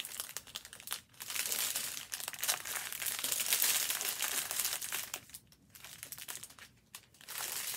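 Small plastic bags of diamond painting drills crinkling as they are picked up and shuffled by hand, easing off for a moment about a second in and again for a couple of seconds near the end.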